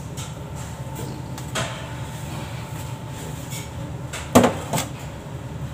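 Metal loaf tin knocking against a stainless steel worktable as a baked loaf is turned out of it: a small knock about a second and a half in, then a sharp loud knock with a lighter one just after, over a steady low hum.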